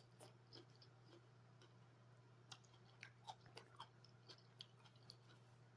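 Faint close-up chewing of salad: soft, scattered wet mouth clicks and small crunches, over a steady low hum.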